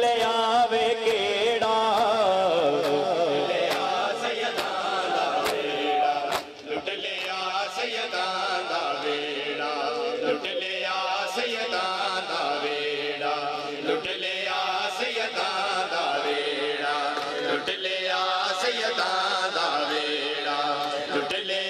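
Voices chanting a Punjabi noha lament in a slow rhythmic melody, with the sharp slaps of hands striking bare chests in matam keeping the beat, more regular in the first few seconds.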